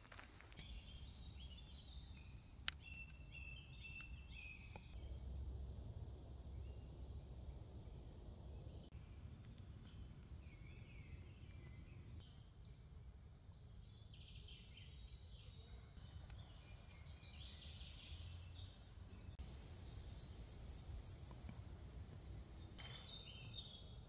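Forest ambience of songbirds chirping and trilling, several at once, over a low steady rumble, with one sharp click about three seconds in. The background shifts abruptly several times.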